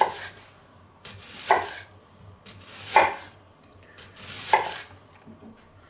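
Chef's knife slicing a whole onion into rings on a wooden cutting board. Four strokes come about a second and a half apart, each a short cut through the onion ending in a knock of the blade on the board.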